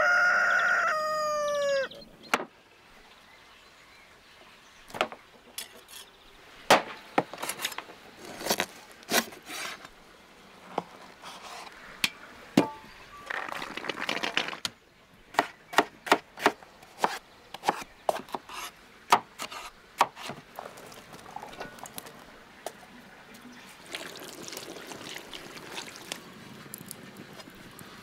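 A rooster crowing, the call tailing off about two seconds in, followed by a long run of sharp clicks and knocks of food preparation. About halfway through comes a rattling pour of dried chickpeas tumbling onto raw meat in a pot.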